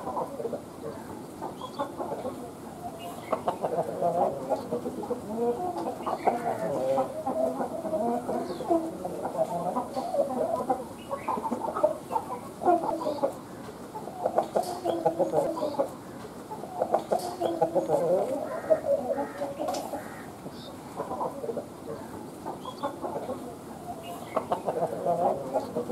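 Chickens clucking, several at once, in a continual stream of short calls with louder spells.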